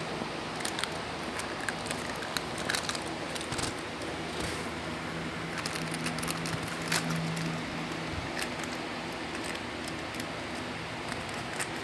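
A Shih Tzu chewing and tugging at a packaging wrapper, with irregular crinkling and crackling clicks.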